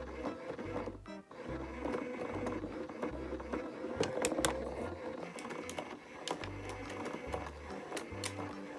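Background music with a repeating bass pattern, over a steady hum and a few sharp clicks about halfway through and again near the end.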